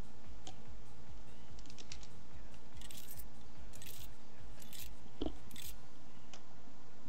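Quiet background music with a steady low pulse, overlaid by a handful of short, sharp scratchy clicks around the middle.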